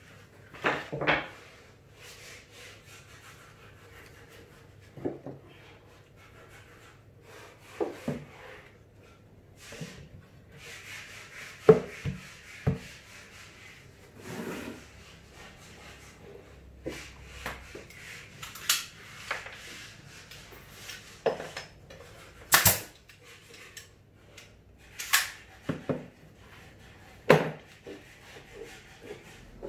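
Wooden panels of a subwoofer box being handled and fitted together during assembly. Scattered separate knocks and bumps come every second or two, with brief scraping of wood on wood between them.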